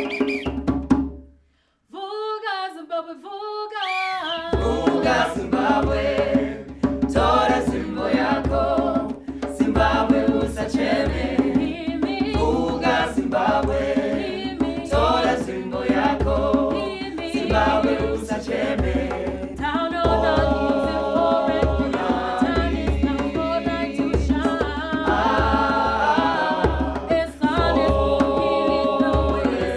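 Choir singing with drum accompaniment. After a short break a single voice sings alone for a couple of seconds, then the full group and a steady drum beat come in about four and a half seconds in.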